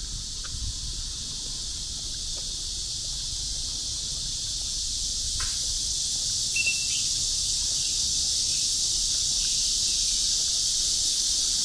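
A steady, high-pitched insect chorus that grows gradually louder. There is a short squeak about halfway through and a brief high chirp just after it.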